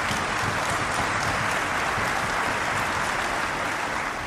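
Bundestag deputies applauding in the chamber, a steady, even clapping that begins to die away near the end.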